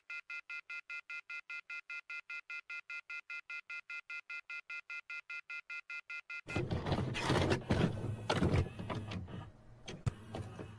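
Telephone off-hook warning tone, a loud multi-tone howler pulsing rapidly on and off about five times a second: the line left off the hook after the operator's intercept message. About six and a half seconds in it cuts off and a louder, harsh burst of distorted noise takes over for a few seconds.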